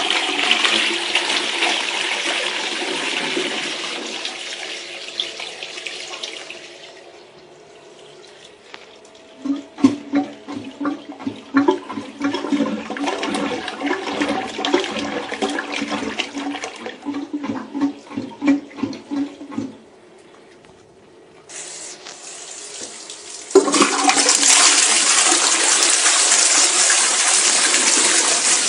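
Armitage Shanks Sandringham toilet flushing: a loud rush of water that dies away over several seconds, then irregular gurgling. About 23 seconds in, a loud steady hiss of running water starts, the cistern refilling.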